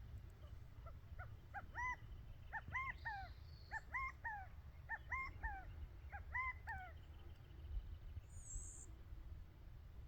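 A bird calling in a run of short phrases of about three notes each, the middle note highest and the last note falling; the uploader takes it for a quail. A single higher chirp follows near the end.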